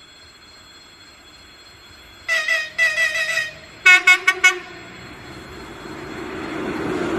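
Locomotive horn sounding two short blasts, then four quick toots at a lower pitch, a friendly greeting signal. The rumble of the approaching train then grows steadily louder.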